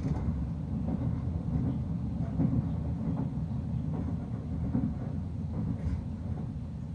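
Sleeper express train running on the rails, heard from inside the passenger carriage: a steady low rumble with a few faint, irregular knocks.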